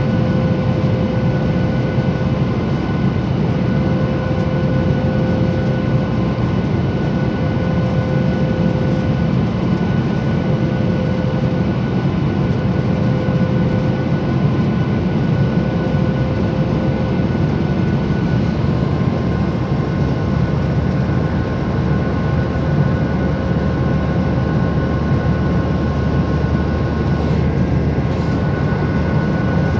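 Steady cabin noise of a Boeing 737 jet airliner climbing after takeoff: a deep, even roar of engines and airflow, with faint steady whining tones above it.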